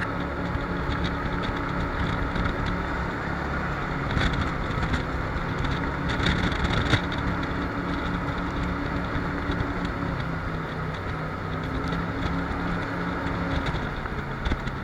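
Jet boat engine running steadily under way, with rushing wind and water noise and a couple of brief louder surges about four and seven seconds in.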